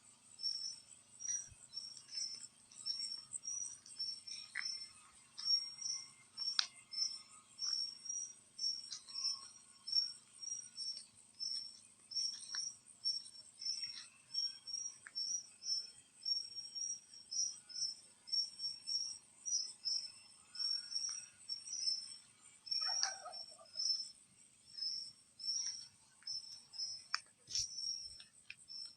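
Tropical rainforest insect chorus: a steady high-pitched buzz with a chirp repeating about twice a second, and scattered short bird calls over it, one louder call about three quarters of the way through.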